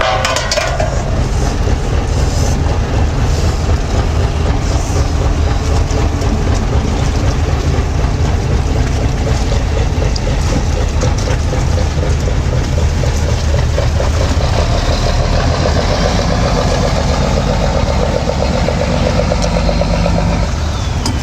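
Boat engine running steadily with a deep, even hum.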